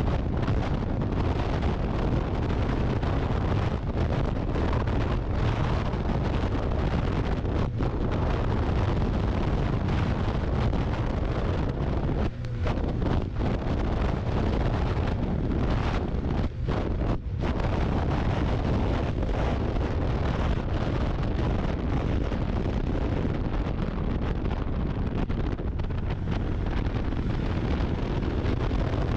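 Wind buffeting the microphone of a moving snowmobile, over the steady noise of its engine and track. The noise dips briefly about twelve seconds in and twice around seventeen seconds.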